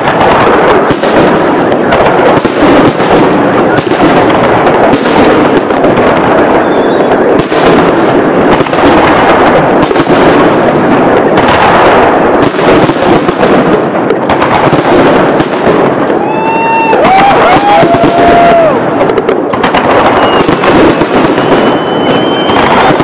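Fireworks display going off without pause: a dense, loud barrage of bangs and crackling shell bursts in quick succession. Around sixteen seconds in, a few wavering whistle tones sound over the bangs for two or three seconds.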